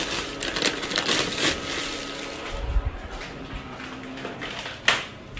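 Plastic bag crinkling and rustling as a hand handles it: a dense crackle, loudest in the first half, that thins out. A single sharp knock comes near the end.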